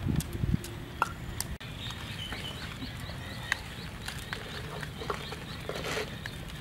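A wooden pestle thudding a few times in a stone mortar, then, after a break, a rapid series of high chirps, about four a second, with scattered light clicks and taps.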